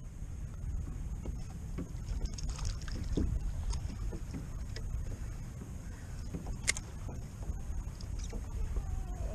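Wind buffeting the microphone and choppy water lapping against a plastic kayak hull, with scattered small clicks and knocks and one sharper click about two-thirds of the way through.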